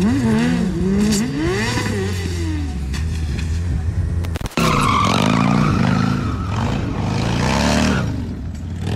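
Motorcycle engine revving up and down several times. About four and a half seconds in, it switches suddenly to another motorcycle engine held at high revs, with a tire screeching as it spins on pavement.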